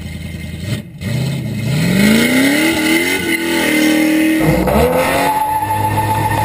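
Car engine at full throttle, accelerating away from the line with its pitch climbing, dropping once at a gear change about three seconds in and climbing again. A little after four seconds a second car's engine takes over, heard close up and also accelerating with rising pitch.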